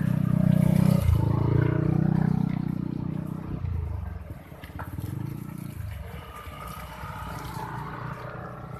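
Yamaha Aerox scooter's single-cylinder engine running close by as it is ridden slowly through deep mud, loudest in the first three seconds and then fading. More scooters are heard running farther off.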